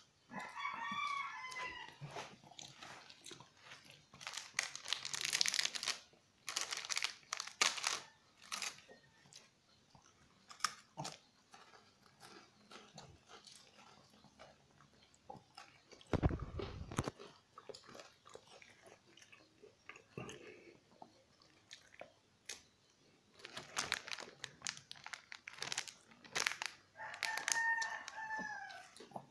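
Shih Tzu chewing a cracker, with irregular bursts of crunching and mouth clicks. A short pitched call sounds twice, once near the start and once near the end, and a dull low thump comes about halfway through.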